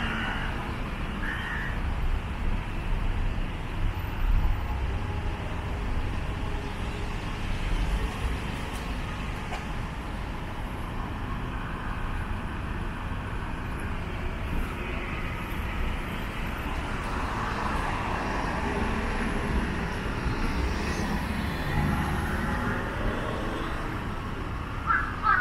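Steady city street ambience: road traffic running past as a continuous low hum.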